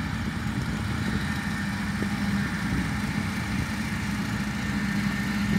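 John Deere 4066R compact tractor's diesel engine running steadily under load as it drives a 6-foot rotary cutter (bush hog) through tall grass, with a steady low hum and rumble.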